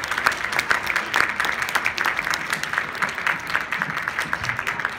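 Audience applauding: dense, irregular clapping, with some single claps standing out louder.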